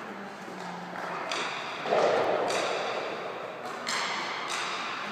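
Ice hockey skate blades scraping the rink ice and a stick working a puck, in a few separate scrapes and taps. The loudest scrape comes about two seconds in and dies away slowly in the rink hall.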